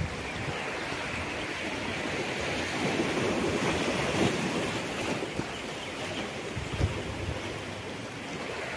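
Sea surf washing against a rocky shore, with wind on the microphone; the surf swells louder in the middle and then eases.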